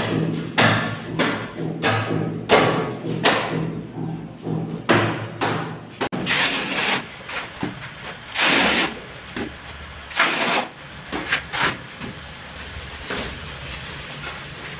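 Tile-setting work: a run of regular knocks, then several scrapes and rubs as a large wall tile is pressed and shifted into combed tile adhesive among leveling clips.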